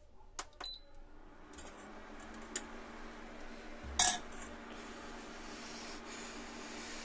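Induction cooktop switched on: a short button beep, then its cooling fan and a steady low hum start about a second and a half in and keep running. About four seconds in, a loud metal clink of a spoon against a steel bowl.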